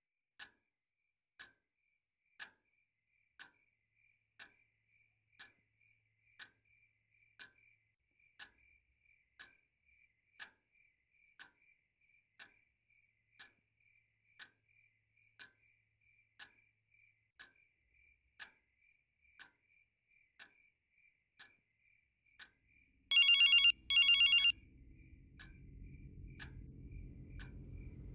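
A clock ticking faintly, about once a second. About 23 seconds in, a phone rings loudly in two short trilling bursts, and a low hum comes in after it.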